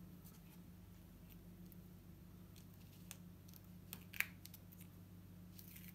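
Faint scratching and light clicks of fingers picking at a sand-painting card, with one sharper click about four seconds in, over a low steady hum.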